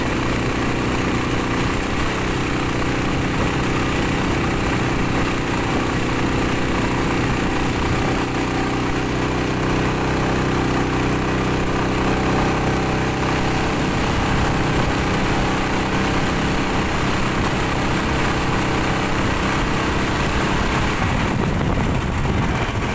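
Small boat engine running steadily on a test run, pushing a fiberglass boat along a canal. Its note shifts in pitch a few times and changes again near the end.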